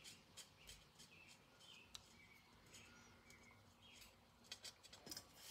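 Near silence: room tone with faint short high chirps and a few soft clicks.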